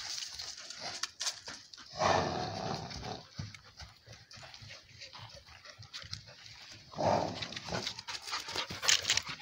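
A dog's voice in two louder outbursts, one about two seconds in and one about seven seconds in, each lasting close to a second, with small clicks and scuffs between.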